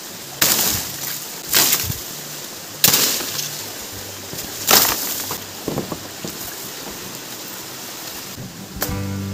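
Large forest leaves being broken off their stalks: four sharp snaps, each with a short rustle of leaves, then a few lighter crackles. Music comes in just before the end.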